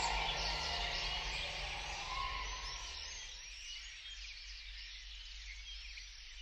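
A large flock of birds chirping and calling over one another, with a low steady rumble beneath; a sustained music chord fades out about three seconds in.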